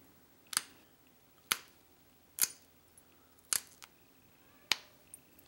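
Small flakes snapping off the edge of a stone point under a steel-nail pressure flaker while side notches are pressed in: five sharp clicks, about one a second.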